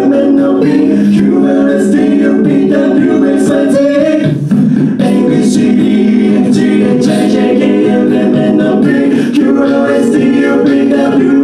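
A cappella group singing live in several-part harmony, with a beatboxer's vocal percussion ticking steadily over the sustained chords.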